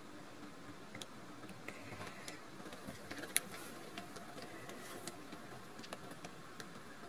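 Faint, scattered clicks and light rustling over a low room hiss, with one sharper click about three and a half seconds in.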